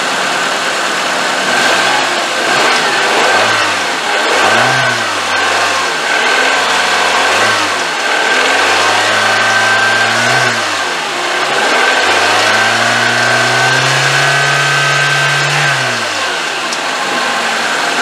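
1995 Nissan Sentra's four-cylinder twin-cam 16-valve engine revved by hand at the throttle: several quick blips, then two longer pulls held for a few seconds, dropping back to idle between them. It runs smoothly, firing on all cylinders with no shaking, its misfire from bad fuel injectors cured.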